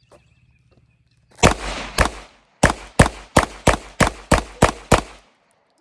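Airsoft pistol firing ten sharp shots, two slow ones and then a quick string of eight at about three a second.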